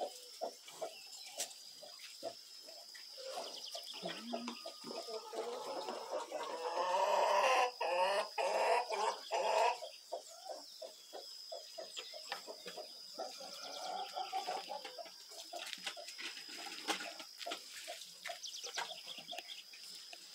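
Domestic chickens clucking, with a louder run of calls about seven to ten seconds in.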